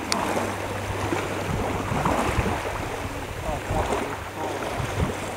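Wind buffeting the microphone over small waves lapping at the water's edge, with a few faint voice-like sounds in the background.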